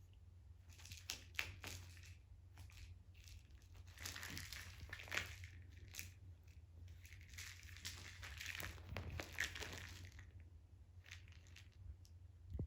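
Faint rustling, crinkling and scratching from a British Shorthair kitten playing with a toy, in irregular bursts over a low steady hum.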